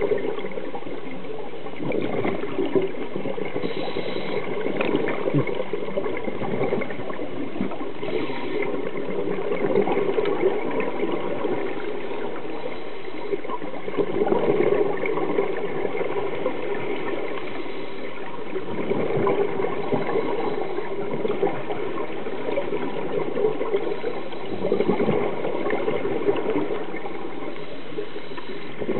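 Underwater sound of a scuba diver's regulator: exhaled bubbles gurgling and rushing in surges every four to five seconds, over a steady watery background with a faint constant hum.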